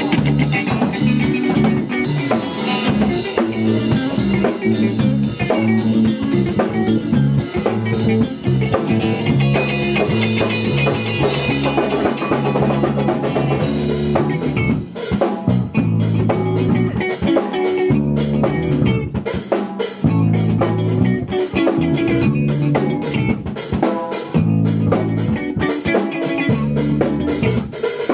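A small band playing live: drum kit with rimshots and bass drum driving a steady beat under electric guitar and bass guitar.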